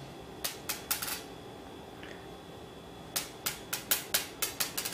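Small Buckyballs magnet spheres clicking on a polished granite slab: a few sharp clicks about half a second in, then a quick run of clicks near the end that come faster and faster as a ball bounces and settles.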